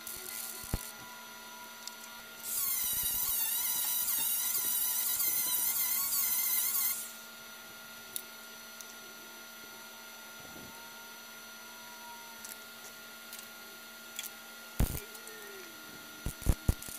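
A high-speed power tool spins a bit into the sheet steel of a 1954 VW Beetle body, running for about four and a half seconds with its pitch wavering under load as it opens a rust hole into a round hole for a plug patch. A few light clicks follow near the end.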